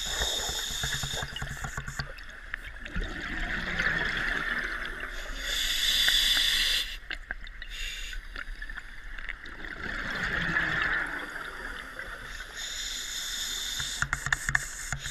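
Scuba diver breathing through a regulator underwater: slow breaths, each a hiss followed by a louder rush of exhaled bubbles, the loudest about six seconds in.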